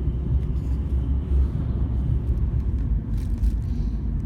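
Steady, loud low rumble, with a few faint clicks about three seconds in.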